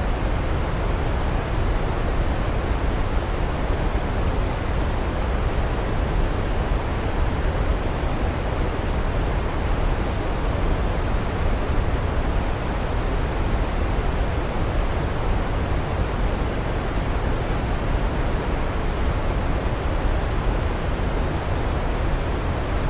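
Steady, unchanging rush of a waterfall, heaviest in the low end, blended with white noise.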